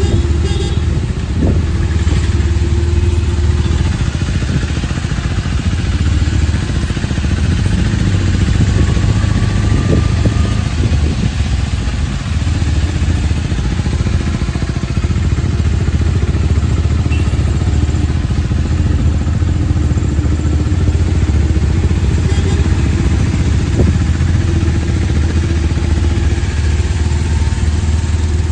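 Auto-rickshaw's small single-cylinder engine running steadily under way, a low drone heard from inside the open cab, with an even hiss from the wet road and a few knocks and rattles of the body.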